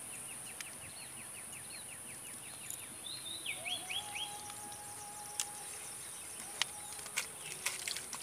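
Lakeside ambience: a steady high insect drone, with birds calling over it, first a quick run of short repeated notes, then three quick falling whistles about three and a half seconds in. A faint steady hum sets in at the same time, and a few sharp clicks come in the second half.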